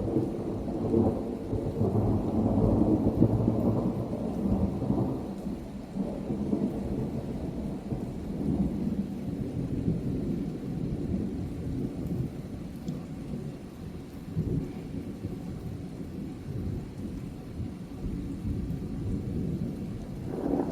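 Thunder rumbling over steady rain. The rumble is loudest over the first few seconds, dies down to a low roll, then builds again near the end.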